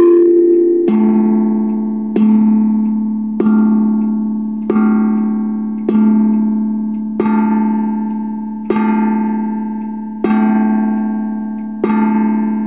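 Grandfather clock striking nine: the last note of its chime tune rings into nine slow, evenly spaced strokes of the same bell tone, each ringing on and fading before the next.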